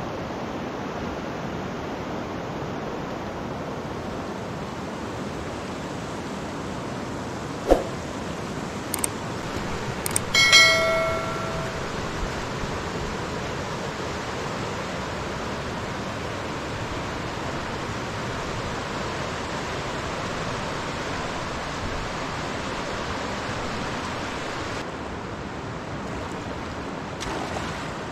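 A big river rushing steadily, with a sharp knock about eight seconds in and a short ringing clink about ten seconds in.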